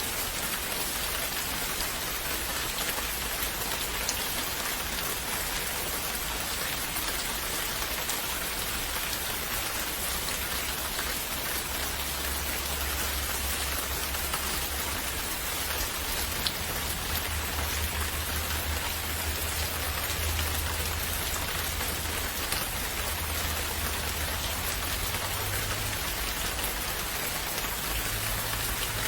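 Steady rain falling: an even hiss with scattered individual drop taps. A low rumble joins underneath about twelve seconds in.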